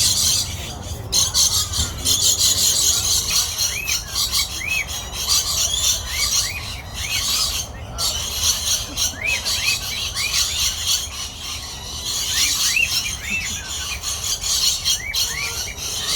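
A flock of aviary birds calling all at once: a dense, continuous high-pitched chatter with many short chirps that rise and fall, overlapping throughout.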